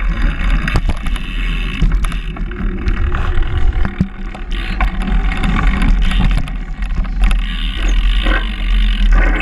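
Bike rolling over a concrete floor, heard close up: a steady low rumble from the tyres and air on the microphone, with frequent clicks and knocks as the bike rattles.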